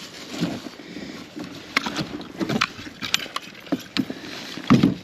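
A large longnose gar flopping about in a boat, giving irregular knocks, clicks and thuds against the hull and gear, with the heaviest thump near the end.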